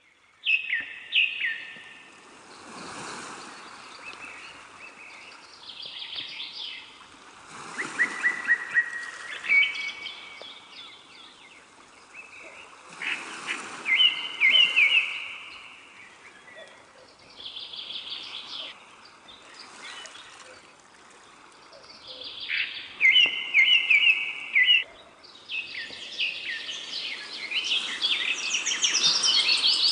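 Birds chirping and trilling in short phrases of quick notes every few seconds, with a denser, louder run of calls near the end.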